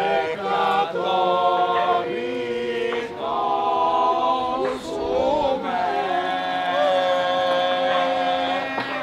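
Several voices singing together without accompaniment in long held notes, with a sliding change of pitch about halfway through.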